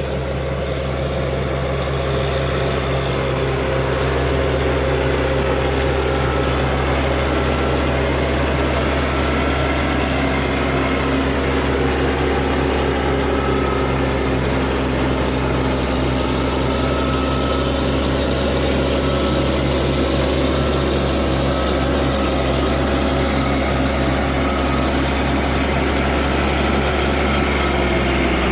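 Caterpillar D6G bulldozer's diesel engine running steadily, a deep drone with a faint on-and-off whine above it.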